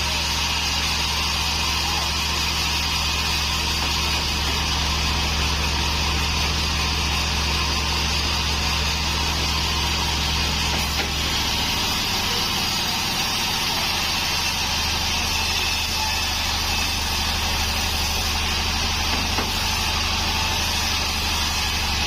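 Band sawmill running and sawing a waru (hibiscus) log, a steady machine hum under a constant hiss. About twelve seconds in, the low hum drops and shifts in pitch.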